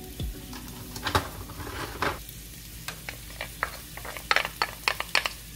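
Minced garlic sizzling gently in olive oil in a nonstick frying pan, while a wooden spoon scrapes and taps garlic off a small ceramic bowl into the pan. A few sharp taps come in the first half and a quick run of them in the second half.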